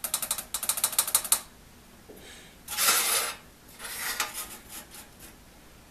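Steel saw-set gauge (a spider) rocking on the set teeth of a one-man crosscut saw blade to check the tooth set: a rapid run of light metal clicks for about a second and a half, then two short scraping sounds as it is slid along the blade.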